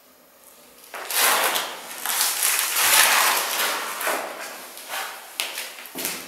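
Plastic PPR water pipes scraping and sliding across a concrete floor as a welded pipe assembly is shifted into place, with scattered knocks. The scraping starts about a second in and is loudest in the first couple of seconds.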